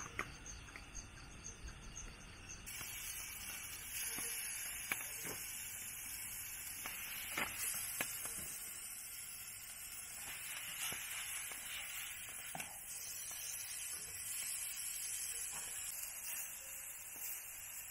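Food sizzling over a freshly lit flame: a steady hiss that thickens about three seconds in, with scattered pops and crackles.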